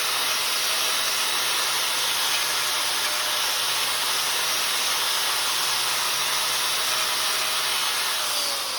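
An electric power-tool motor running steadily with a strong hiss, switched off about eight seconds in, its whine falling in pitch as it spins down.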